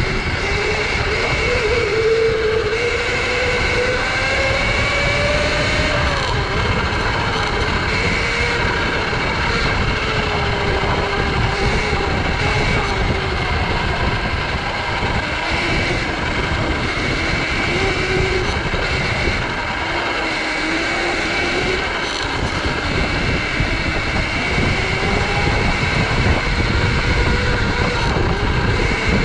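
Sur-Ron electric dirt bike's motor whining, its pitch rising and falling as the rider speeds up and slows down, under heavy wind rumble on the microphone.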